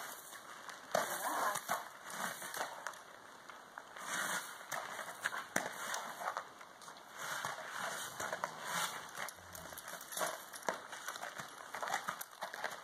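Horse walking on soft sand-and-dirt arena footing: irregular muffled hoof crunches and scuffs, with a few sharper clicks.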